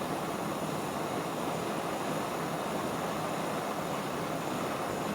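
Soldering torch flame hissing steadily while it heats a hard-solder seam on a silver ring band, bringing the solder up to the surface.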